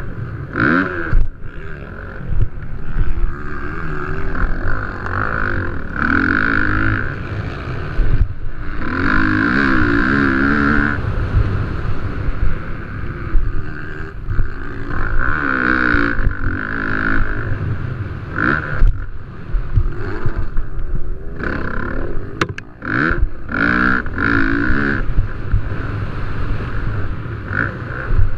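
Motocross dirt bike engines racing: repeated surges at high revs, wavering and rising in pitch, with short dips between as the riders roll off the throttle.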